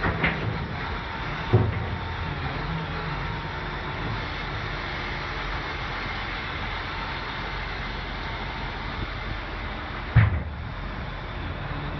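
XCMG LW500K wheel loader's diesel engine running steadily while the bucket is lowered, with two heavy thumps, one about a second and a half in and one near the end.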